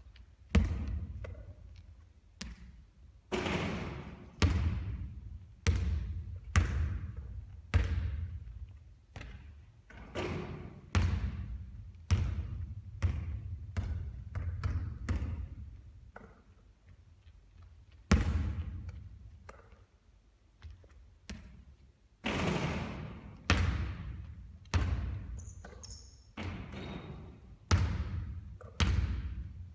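A basketball bouncing and thudding on a court during three-point shooting practice. There are sharp impacts about once a second, with a few pauses, and some hits leave a longer ringing tail.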